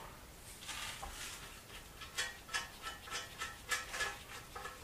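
Light metallic clinks and rattles as loose engine parts and bolts are handled and set down on a garage floor, a dozen or so small taps with a brief ring, most of them from about two seconds in.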